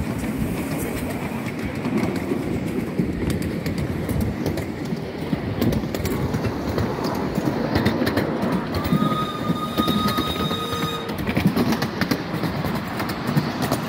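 A miniature railway train running along the track: a steady rumble with irregular clicks of the wheels over the rail joints. About nine seconds in, a steady high tone sounds for about two seconds.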